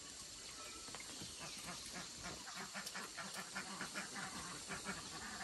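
A rapid run of short animal calls, about four or five a second, starting about a second and a half in, over a steady hiss.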